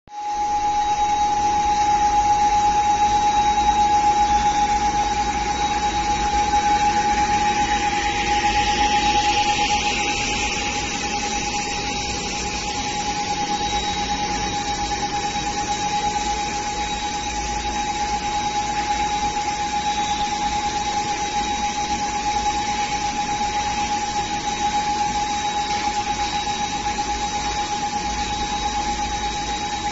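Four-cavity semi-automatic bottle blowing machine running: a steady machine noise with one constant whining tone, a little louder for the first ten seconds or so.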